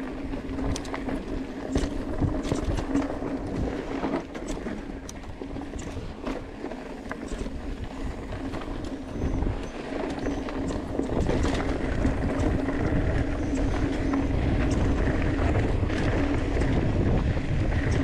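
Mountain bike descending a dry dirt trail: tyres crunching and rattling over loose dirt and rocks, with frequent sharp knocks from bumps. Wind rumble on the camera grows louder in the second half.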